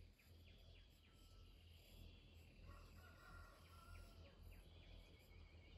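Faint crowing of a jungle rooster (red junglefowl), one drawn-out crow about two and a half seconds in, over a steady background of chirping insects.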